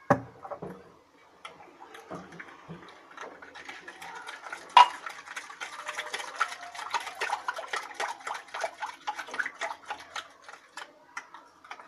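A hand whisk beating thin cake batter in a glass bowl: rapid clicking and tapping of the whisk against the bowl, getting quicker from about three seconds in, with a sharper knock about five seconds in.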